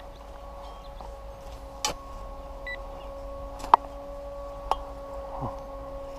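XP Deus metal detector giving a steady electronic hum, with a few sharp knocks of a hand digger striking the soil about two, three and a half and four and a half seconds in.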